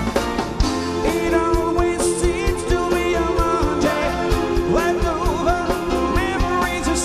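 Pop-rock band playing live with a string section: drums, bass guitar and violins and cello under a male lead vocal singing the melody.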